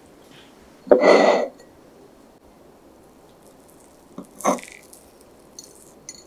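A metal fork cutting into a soft baked sweet potato cake and knocking against a ceramic plate. There is a sharp, loud clatter about a second in, then two lighter knocks a little after four seconds.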